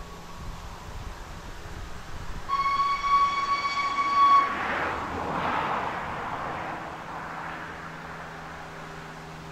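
Narrow-gauge steam locomotive Pedemoura sounding its steam whistle in one steady blast of about two seconds, starting about two and a half seconds in. A rush of steam follows and fades over the next few seconds, over the low rumble of the engine at work.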